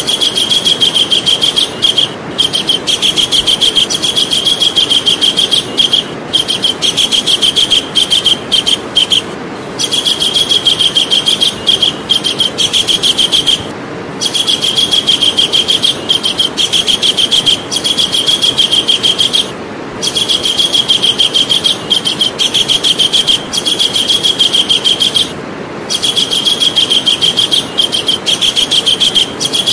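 Javan kingfisher giving its loud, rapid rattling call in long trills of several seconds each, with brief pauses between them, over a steady background hiss.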